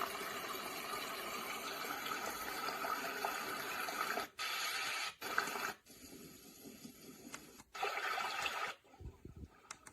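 Momcozy white noise machine playing a steady rushing noise that breaks off and changes to different noise tracks several times from about four seconds in, with brief gaps between, as its sound options are cycled through.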